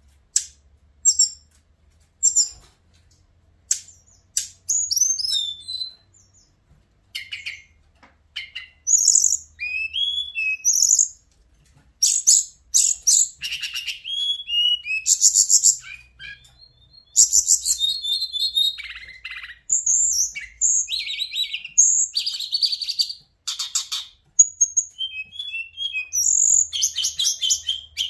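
Hill blue flycatcher (Cyornis whitei) singing: a few short scattered chirps at first, then from about eight seconds in a near-continuous run of high, clear whistled notes and fast trills.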